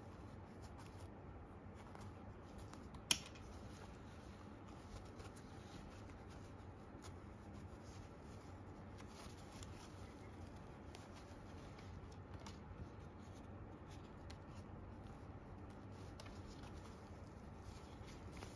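Faint handling sounds of small fabric and plastic parts: fingers working a 1/6-scale figure's cloth tunic and a tiny shoulder-tab fastener, with light scattered ticks and one sharp click about three seconds in.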